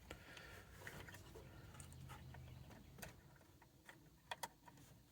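Near silence, with a few faint plastic clicks and taps from a wiring connector being worked into the back of a car's climate control module; the clearest come as a pair about four seconds in.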